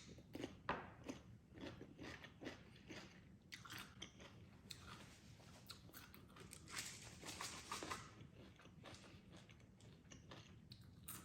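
Close-up chewing and crunching of a mouthful of spicy salmon salad with onion: faint, irregular crunches that grow denser for a few seconds midway.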